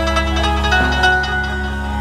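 Amplified Indian banjo, a keyed zither-like instrument, playing a melody of plucked notes over a steady low drone.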